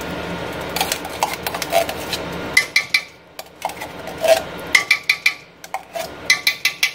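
Metal spoon scraping tomato paste out of a tin can, with irregular clinks and taps of the spoon against the can.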